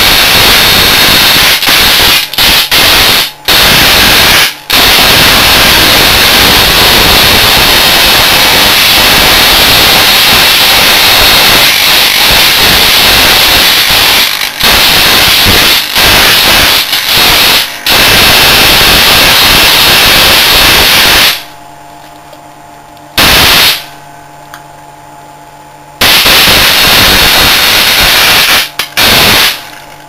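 High-voltage arc from microwave oven transformers burning into the circuitry of a waterlogged photocopier: a loud, harsh, crackling arc noise that runs most of the time, breaking off briefly several times. About two-thirds of the way through it stops for a few seconds, leaving a steady hum, then strikes again and sputters near the end.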